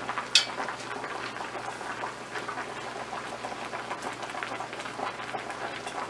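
Fish broth boiling in a stainless steel pot on high heat, a steady crackle of small bubbles. A sharp clink of a metal spoon on the pot comes about half a second in.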